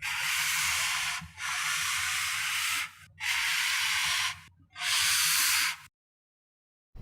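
Slide sound effect played four times in a row: each a steady hiss of about a second, followed by a second of silence.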